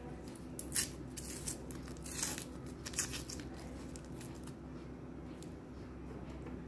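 Foil-and-paper wrapper of a roll of chocolate candies being torn and peeled open, with a few sharp crinkling rips in the first three seconds, then only light handling over a steady low hum.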